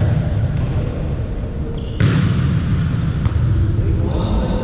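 Indoor volleyball play echoing in a sports hall: a steady low rumble of hall noise, a sharp hit about two seconds in, and short high squeaks near the end.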